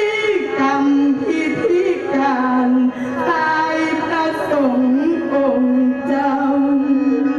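Music: a slow melody of long held notes that bend and slide in pitch, with a singing voice or voice-like lead.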